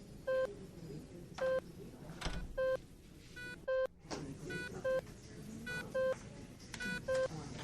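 Hospital ambience: a short electronic beep repeats about once a second, with a second beep pattern in between, over a faint murmur of background voices. A single sharp knock comes about two seconds in.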